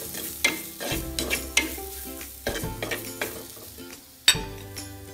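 Spatula stirring and scraping onions, green chillies and chilli flakes frying in coconut oil in a clay pot, with a light sizzle, and one sharp knock about four seconds in. Background music with held notes plays underneath.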